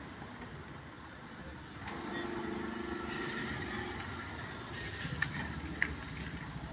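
Low steady engine rumble that swells for a couple of seconds about two seconds in, with two faint sharp pops near the end.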